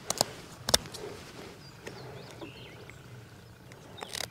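Sharp snips and clicks of shears cutting the fins off a bluegill, a few in the first second, the loudest about three-quarters of a second in, and more near the end. Faint bird chirps sound in between.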